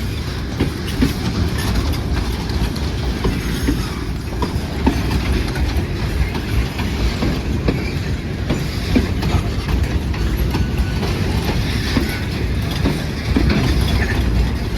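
A train hauled by a pair of GE U10B diesel-electric locomotives rolls past on an upgrade with a steady heavy rumble, its wheels clicking irregularly over the rail joints.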